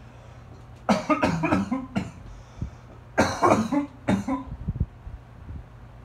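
A person coughing in two loud fits, about a second in and again about three seconds in, over the steady hum and airflow of an Arno Ultra Silence Force fan running.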